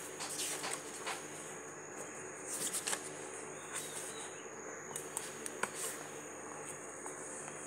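Room tone with a steady low hum and a faint high whine, broken by scattered light clicks and short scratchy rustles of desk work.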